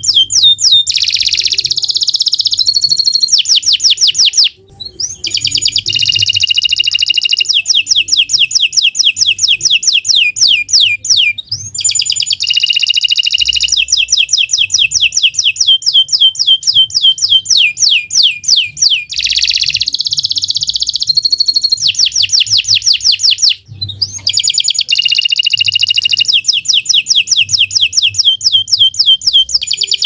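Domestic canary singing a long, continuous song of fast trills and rapidly repeated notes, with brief breaks about four, eleven and twenty-three seconds in.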